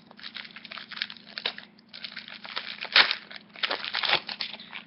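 A Yu-Gi-Oh booster pack's foil wrapper crinkling and tearing as it is opened, in irregular crackly bursts that are loudest about three seconds in, over a faint steady hum.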